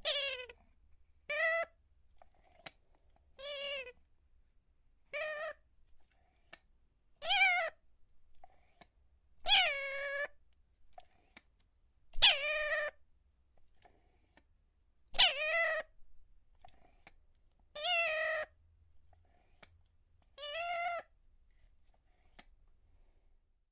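Toy doll giving about ten short, wavering squeaky calls, a couple of seconds apart, sounding rather like a cat's meow.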